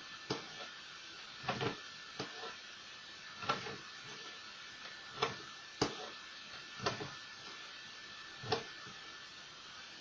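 Short rustles and scrapes of paper being rubbed and rolled by hand on a wooden tabletop, about eight over ten seconds with one sharper click near the middle.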